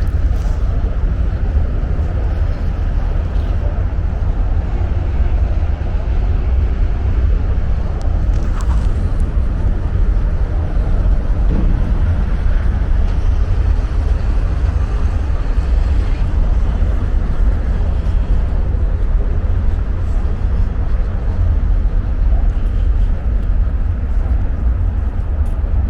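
Wind buffeting the camera's small microphone: a steady low rumble with a rough hiss above it.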